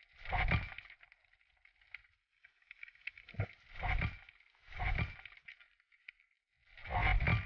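Underwater rushing of water against a GoPro housing as the diver moves, coming in about five separate surges of half a second or so, muffled through the housing.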